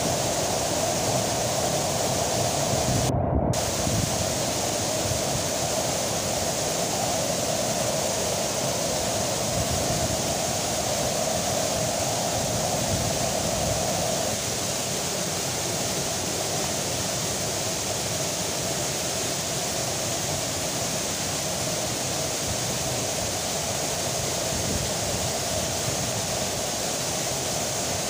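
Waterfall rushing after rain: a steady, full hiss of falling water with a stronger mid-pitched roar. The high part of the sound briefly drops out for a fraction of a second about three seconds in.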